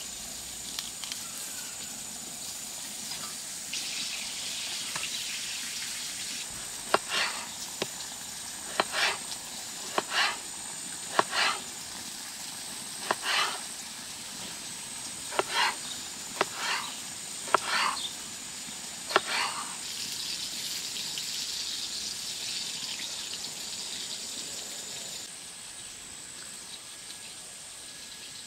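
About ten short, sharp knocks, irregularly a second or two apart, each with a brief crunchy tail. They come over a faint, steady high-pitched whine and hiss.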